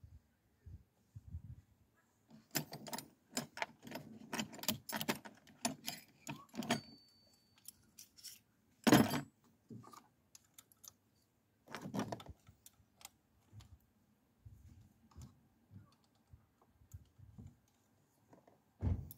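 Hand tools clinking and tapping against metal engine parts: a quick run of sharp clicks for several seconds, then a few separate louder knocks, the loudest about nine seconds in.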